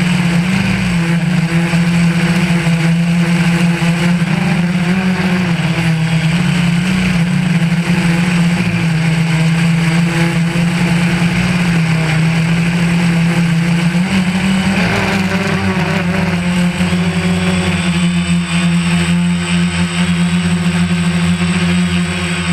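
DJI Phantom 1 quadcopter's four electric motors and propellers buzzing steadily in flight, the pitch shifting a little about two-thirds of the way through, with wind buffeting the microphone.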